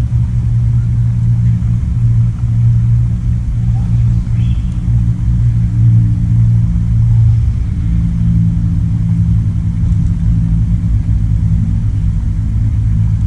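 Steady low hum of an idling engine, even in level throughout, with a rumble beneath it.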